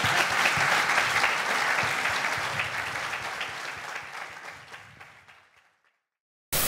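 Audience applauding, fading out over the last two seconds. A sudden loud outro sound cuts in right at the very end.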